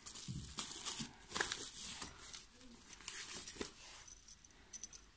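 Plastic bubble-wrap packaging crinkling and rustling in the hand as a wristwatch is pulled out of it, in irregular bursts that die down near the end.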